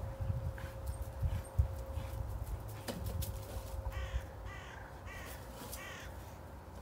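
A crow cawing four times in quick succession, about half a second apart, from about four seconds in. Before that there are low rumbling bumps, the loudest about a second and a half in.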